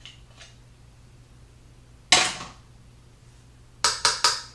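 A metal spoon knocked against a container: one sharp knock about two seconds in, then three quick taps near the end.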